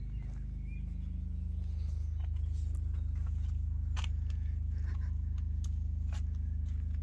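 A machine running with a steady low hum, growing a little louder about two seconds in, with a few faint light clicks over it.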